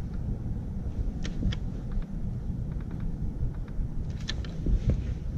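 Wind rumbling on the microphone, with a few light clicks and knocks, about a second in and again near four seconds.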